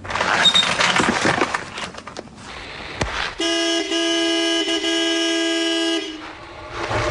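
A vehicle horn sounds in one steady held blast of about two and a half seconds, a little past halfway through, after a stretch of broad noise.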